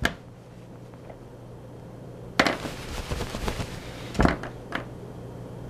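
Paper sheets being handled on a desk: a crackling rustle lasting about two seconds in the middle, with a few sharp clicks, over a faint steady hum.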